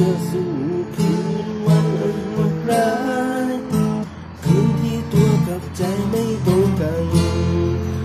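Acoustic guitar strummed in steady chords, with a voice singing the melody along with it.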